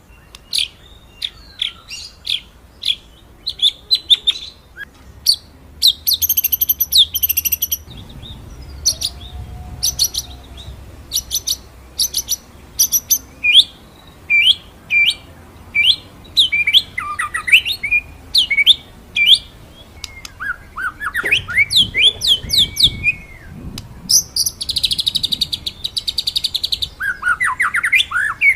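White-rumped shama (murai batu) singing: a string of sharp, high 'shooting' notes and quick whistled sweeps, with rapid rolling trills briefly about six seconds in and again near the end.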